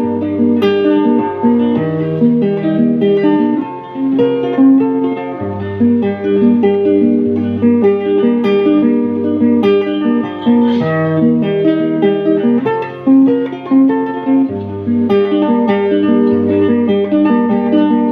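Guitar playing an instrumental break between sung verses: a picked melody line over steady low bass notes, with no singing.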